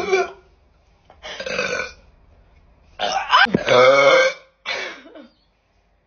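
A young woman's loud burps, one after another: a short one about a second in, then a longer, louder one about three seconds in, and a brief one just after it.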